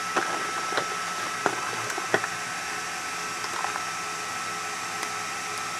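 A few light clicks and taps of plastic multimeter test leads and probe tips being handled, mostly in the first two seconds. Under them runs a steady hiss with a faint, high, steady whine.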